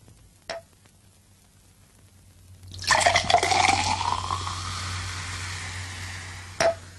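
Carbonated mineral water poured from a glass bottle into a drinking glass, the pouring note rising as the glass fills, then fizzing on and slowly fading. A short glassy clink comes about half a second in, and another near the end as the bottle is set down.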